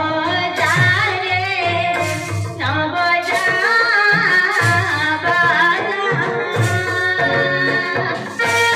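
A singer's ornamented, wavering voice carried through a handheld microphone and PA, over a steady drum accompaniment.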